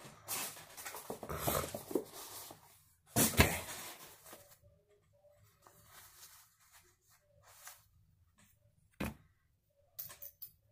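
Hands unpacking a pen-style tattoo machine: rustling of the box and a cloth drawstring pouch, with a loud knock about three seconds in. Then mostly quiet handling, with one sharp click near the end.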